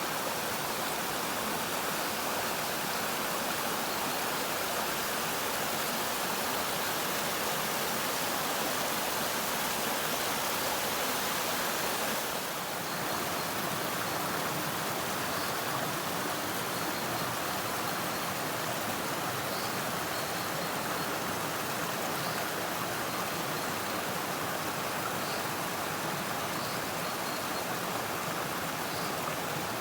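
Steady rushing of a forest stream, with faint, short, high bird chirps now and then in the second half.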